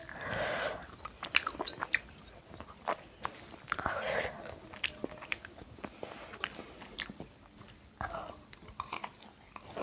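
Close-up eating sounds of chicken biryani being chewed: wet mouth clicks and smacks with occasional crunchy bites, coming irregularly throughout.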